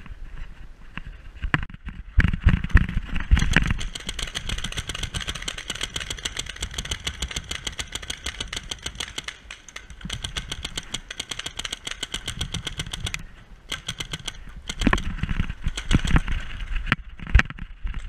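Paintball markers firing long, rapid strings of shots, an even popping rhythm that starts about two seconds in, pauses briefly near the end, then picks up again with louder, sharper shots.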